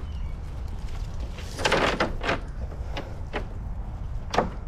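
Wet cast net being hauled aboard a small boat and dropped on the deck: a handful of sudden knocks and thumps as its lead weights and bunched mesh hit the hull, the loudest near the end, over a steady low rumble.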